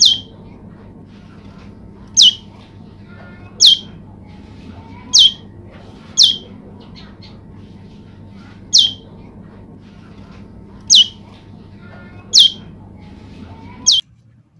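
Male prenjak lumut giving nine short, sharp calls, each sweeping quickly down in pitch, spaced one to two and a half seconds apart, over a steady low hum.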